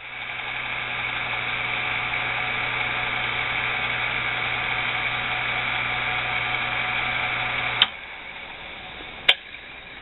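Dayton 115-volt two-speed electric motor wired for high speed, plugged in and running: it spins up over about a second to a steady hum and whir. It cuts off with a click about eight seconds in, and a second click follows.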